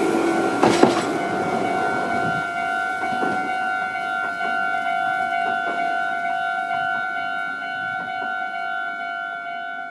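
Japanese railway level-crossing alarm bells sounding steadily. The last noise of a passing Meitetsu Seto Line train dies away in the first two seconds. The bells grow quieter near the end.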